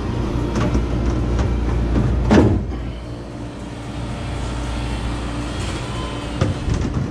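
Refrigeration unit of an ice cream novelty freezer running, its compressor and condenser fan giving a steady hum. A single louder knock comes about two and a half seconds in, with a few light clicks around it.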